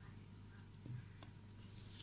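Near quiet with a steady low hum, broken by a soft knock about a second in and a faint click just after, as a large kitchen knife is worked into a pumpkin's hard rind.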